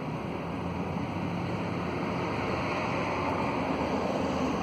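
Steady rushing noise of wind on the microphone, with a faint low steady hum underneath.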